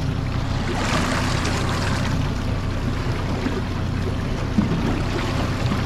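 Honda 30 hp four-stroke outboard motor running steadily, with water rushing along the boat's hull, the rush swelling for about a second near the start. A single light knock a little past the middle.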